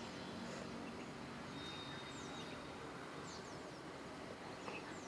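Quiet background hiss with a few faint, short high chirps that fall in pitch and come in small groups. A thin, steady high tone sounds for about a second and a half, starting near the middle.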